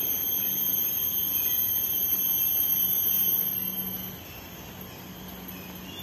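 Steady, shrill drone of a rainforest insect chorus, several high-pitched tones held together, which drops in level about four seconds in.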